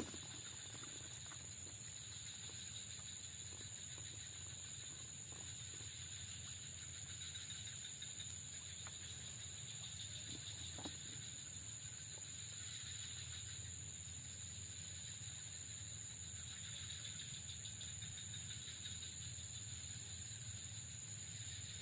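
Quiet, steady high-pitched insect drone, with a faint low hum beneath it and a few soft, scattered clicks.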